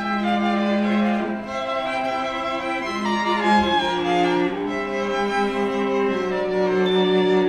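Orchestral show music led by bowed strings, playing long held chords that change every second or two.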